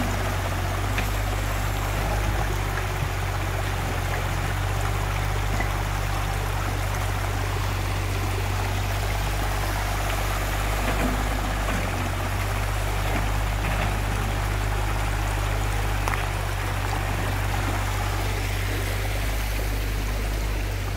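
Fast-flowing, muddy river rushing over rocks and gravel, a steady hiss of water, over a steady low hum from a mini excavator's engine.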